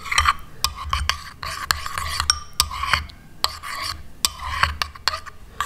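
A metal spoon stirring a thick, milky face-mask mixture in a bowl, scraping and clicking against the bowl's sides at an irregular pace.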